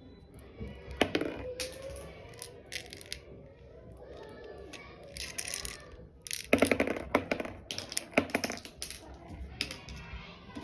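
Sharp plastic clicks and rattles from handling a toy pistol, scattered at first and then a dense run of them from about six and a half to nine seconds in.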